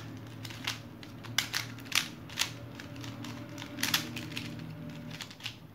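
Plastic twisty 3x3 puzzle cube being turned by hand: irregular light clicks and clacks as its layers are twisted, with several sharper clicks spread through.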